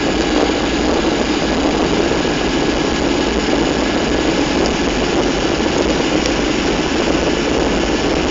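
Steady jet engine and airflow noise of a Gol Boeing 737's CFM56 turbofans, heard inside the passenger cabin during a low approach.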